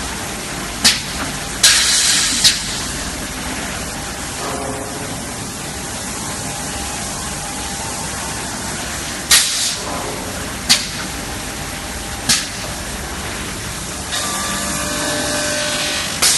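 CNC glass corner edging and polishing machine running with a steady mechanical noise, broken by about six short, sharp hisses spread through the cycle, the longest near the start.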